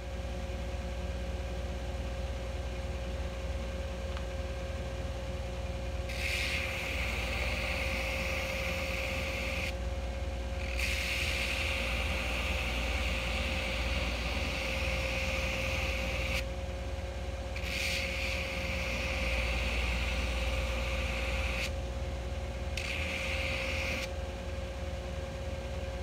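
Electric belt grinder running steadily, with four stretches of grinding as flat pieces of scrap saw steel are pressed against the belt, the first starting about six seconds in, with short breaks between.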